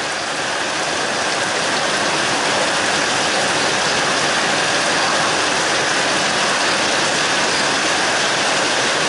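Heavy rain pouring down, a steady loud hiss.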